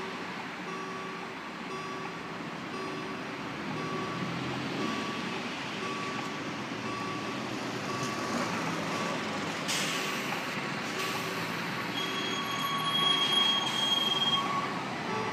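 A repeating electronic warning beep, about two a second, over passing road traffic. Near the end the red narrow-gauge diesel locomotive 199 031-6 and its train approach, and a high steady squeal sounds for about two seconds.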